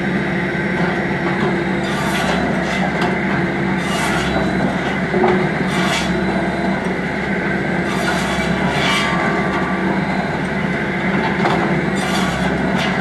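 AMR Solomat Auto automatic firewood circular saw, driven by a tractor, running steadily, with a short rasping burst about every two seconds as the blade cuts through a log.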